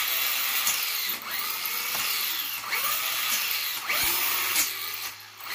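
Hosim X08's brushless motor and metal-geared drivetrain whining as the throttle is pulled and released several times, the pitch rising and falling roughly once a second. The sweeps fall away quickly when the trigger is let go: the ESC's drag brake is stopping the wheels instead of letting them freewheel.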